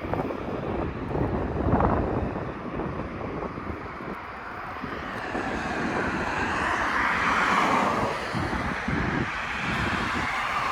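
Wind buffeting the microphone on a moving electric unicycle, an irregular low rumble mixed with rushing noise. The rushing grows louder about halfway through and eases off near the end.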